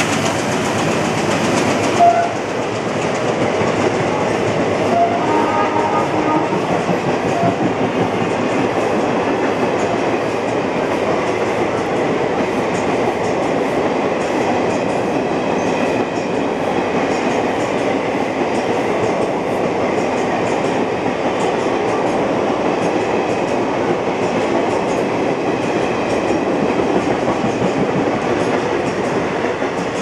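Express passenger coaches running through a station at speed: a steady rumble of wheels on rails with a fast clickety-clack over the rail joints. There is a brief louder note about two seconds in.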